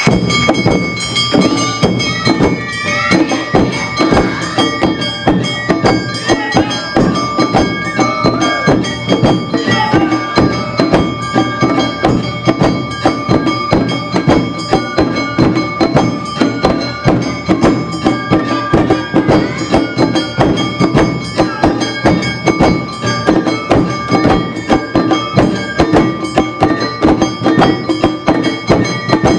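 Awa Odori festival music from a live hayashi band: percussion keeps a fast, steady beat under high sustained notes.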